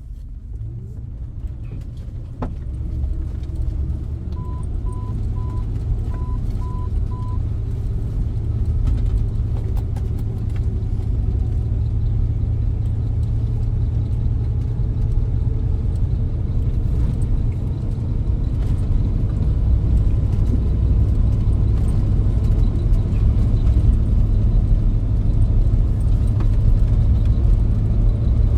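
Jeep driving slowly on a dirt track heard from inside the cab: a low, steady engine and drivetrain rumble that grows gradually louder as it gets under way. About four seconds in, five short electronic beeps sound.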